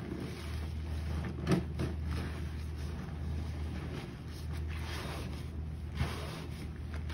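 A sponge soaked in sudsy detergent and bleach water being squeezed and kneaded by rubber-gloved hands in a plastic basin: wet squelching and sloshing of foam, with a sharper squish about a second and a half in and another near six seconds. A steady low hum runs underneath.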